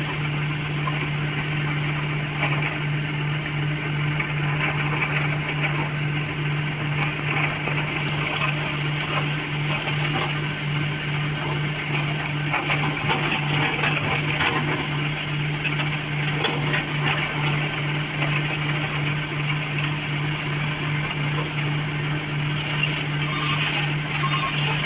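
Excavator's diesel engine running steadily: a constant low hum under an even layer of mechanical noise.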